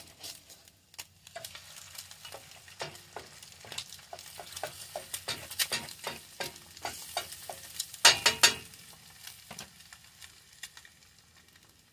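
Spatula scraping and tapping against a stainless steel frying pan as eggs are stirred and broken up, sizzling in oil. There is a louder clatter about eight seconds in, then only faint sizzling.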